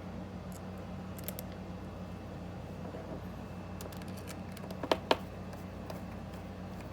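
Small metal parts being handled: a few faint ticks, then two sharp clicks close together about five seconds in, as machine screws and the parts of a Daisy Powerline 426 CO2 pistol are fitted by hand. A steady low hum runs underneath.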